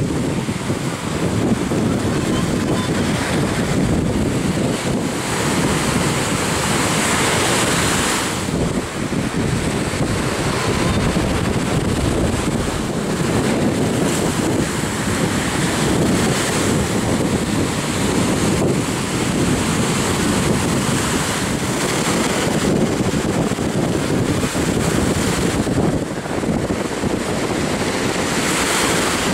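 Ocean surf breaking and washing in, with strong wind buffeting the microphone: a steady rushing noise throughout.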